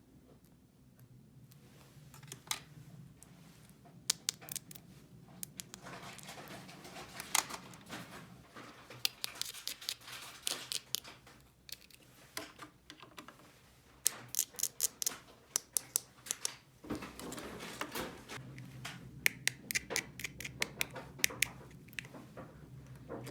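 Small plastic toy pieces and their packaging being handled: irregular clusters of sharp clicks and taps over rustling and scraping, quieter for the first couple of seconds.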